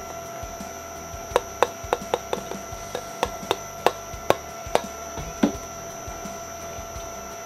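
Twin-shaft shredder running empty with a steady hum. A series of about a dozen sharp clicks comes between about one and five and a half seconds in.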